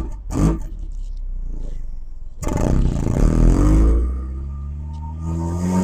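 1991 Honda Accord's four-cylinder engine and exhaust under acceleration, heard from a car being driven: the engine note rises as it pulls, eases off near four seconds, then climbs in pitch again toward the end, with a rush of wind and road noise while it pulls hard.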